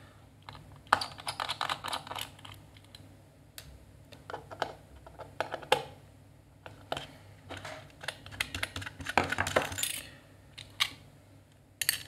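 Irregular small metal clicks, taps and scrapes of a hand tool working on an opened Quantum Fireball hard drive's aluminium casing, undoing screws to reach the platters, with a busier run of scraping near the end.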